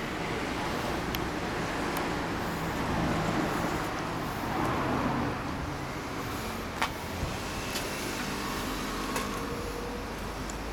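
A motor vehicle running, a steady rumble with a few sharp clicks, the clearest about two-thirds of the way through.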